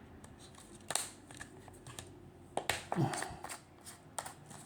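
Hands handling a plastic supplement bottle and its cap: a handful of sharp clicks and taps, the loudest cluster a little past halfway, with a short low scrape among them.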